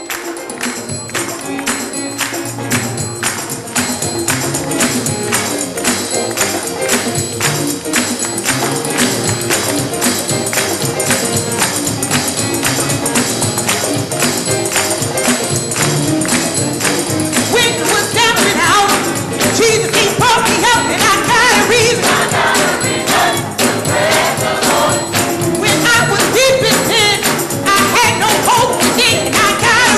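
Uptempo gospel music with a tambourine and a driving beat, and a choir singing; the voices come in strongly a little past the middle.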